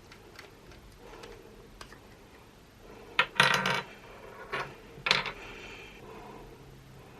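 Clear crystal slime with Orbeez beads being squeezed and handled, giving a few short crackling, clicking bursts; the loudest comes about three seconds in, with two smaller ones after it.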